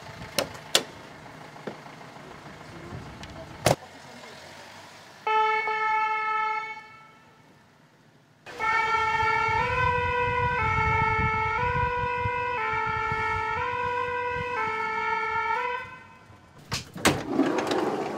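French two-tone siren of a Paris fire brigade rescue ambulance (VSAV). It gives a short single note about five seconds in, then alternates between two notes for about seven seconds. A few sharp knocks come in the first four seconds and again near the end.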